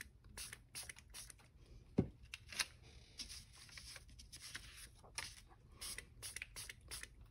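Trigger spray bottle spritzing rubbing alcohol onto copy paper in a series of short, quiet sprays, with paper rustling as it is smoothed flat and a soft tap about two seconds in.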